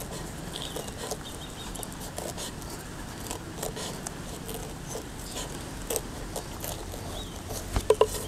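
A knife cutting around a whole pineapple through its tough rind, making a run of small, irregular crunching clicks, with a few louder clicks near the end.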